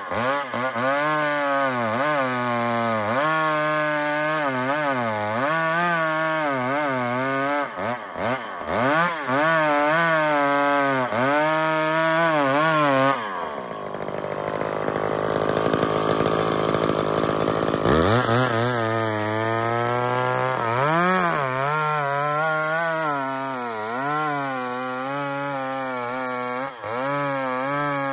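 Old McCulloch chainsaw cutting through a big log, its engine pitch rising and falling as it works in the cut. About halfway through the revs drop low for a few seconds, then climb back up.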